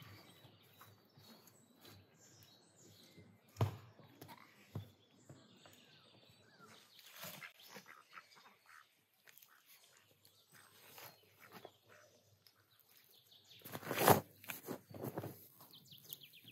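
Faint bird chirps over quiet outdoor ambience, with a single sharp knock a few seconds in. Near the end, a shovel digging into garden soil: a few loud scraping, thudding strokes as the blade cuts in and loose earth is thrown.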